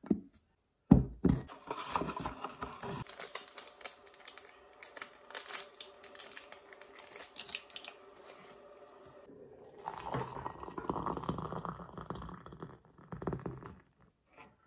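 Tea being made by hand: a plastic electric-kettle lid clicks shut, a paper tea-bag wrapper crinkles and tears, and hot water is poured from the kettle into a ceramic mug near the end.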